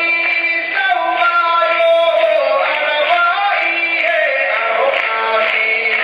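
Taiwanese Indigenous singers' voices singing a slow melody of long held notes, played from a livestream through laptop speakers.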